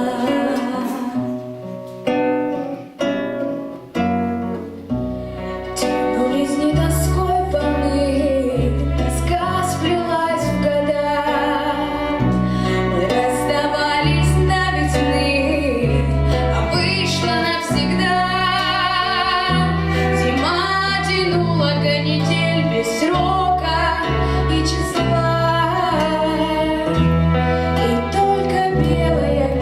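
Song with a woman singing over a backing track. It opens with sparse plucked notes, and a steady bass line joins about six seconds in.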